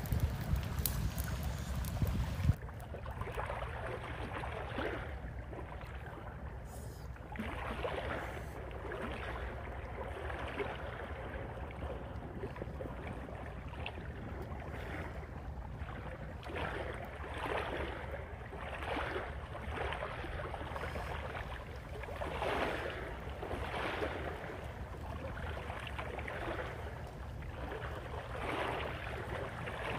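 Small waves washing on a rocky shore, swelling and easing every second or two over a faint low hum. For the first couple of seconds wind buffets the microphone with a few clicks, then it cuts off suddenly.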